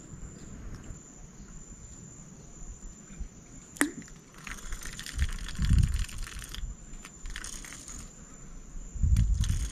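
Insects trilling in a steady high-pitched chorus. There is a sharp click about four seconds in, a rustling hiss for about two seconds midway, and low thuds, loudest near the end.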